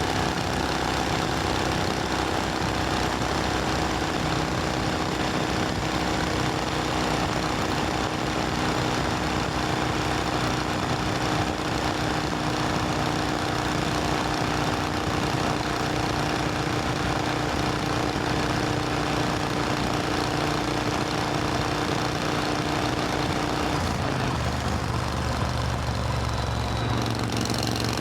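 Supercharged Triumph Thunderbird Storm parallel-twin motorcycle engine running with a steady note; about three-quarters of the way through the note changes and turns deeper.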